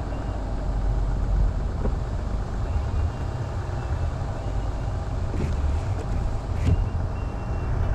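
Vehicle driving on the road: a steady low rumble of engine and tyres, with a faint high whine and a couple of light clicks in the second half.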